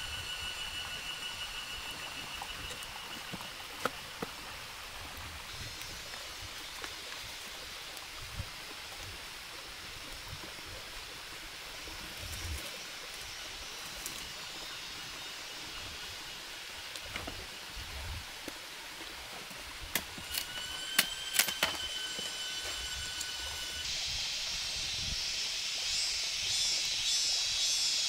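Forest ambience: a steady high-pitched insect buzz over a campfire that gives a few sharp cracks, with a cluster of cracks about two-thirds of the way through. Near the end a denser, high insect chorus comes in.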